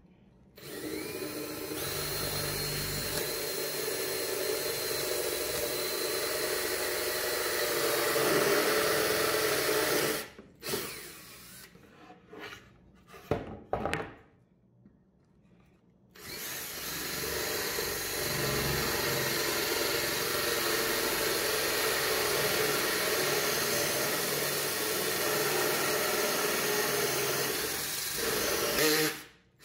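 Cordless drill boring a hole through a wooden board, run steadily in two long stretches of about ten seconds each. Between them come a few seconds of short knocks and quiet.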